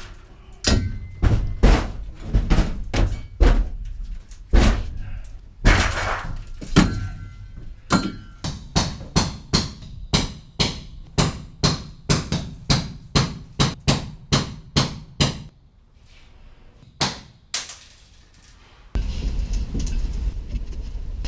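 Hammer blows on a punch driving out steel floor rivets in a school bus body, sharp metal strikes, irregular at first and then about two or three a second. After a short pause and two last blows, a steady low rumble starts near the end.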